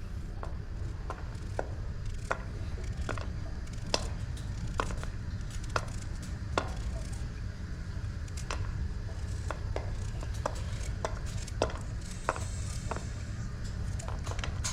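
Knife chopping food on a cutting board, sharp strokes about one or two a second, unevenly spaced, over a steady low rumble.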